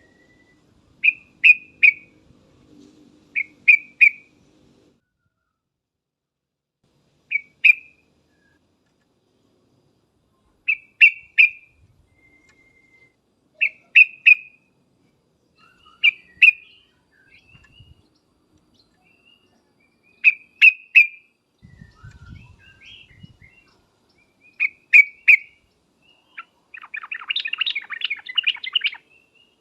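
Yellow-vented bulbul (trucukan) calling: short bubbly notes in clusters of two or three, repeated every few seconds, then a longer stretch of rapid chattering near the end.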